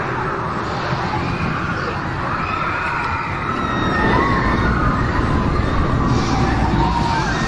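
Outdoor background noise: a steady low rumble that grows louder about four seconds in, with faint distant voices rising and falling in pitch.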